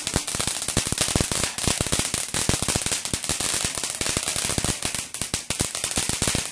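Ground fountain firework spraying sparks, a constant hiss under rapid, dense crackling.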